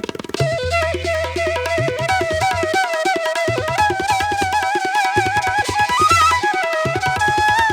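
Background music: a wavering flute-like melody over tabla drumming and a steady low drone, in a South Asian traditional style.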